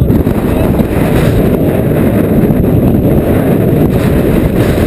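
Strong wind blowing over the microphone as a loud, steady rumble, with water rushing and splashing along the hull of a Hunter 31 sailboat driving through rough water in 20–30 knot winds.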